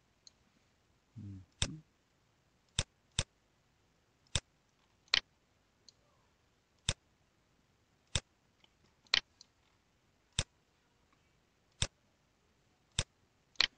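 Computer mouse buttons clicking, about a dozen sharp single clicks at irregular intervals, as software is operated on screen.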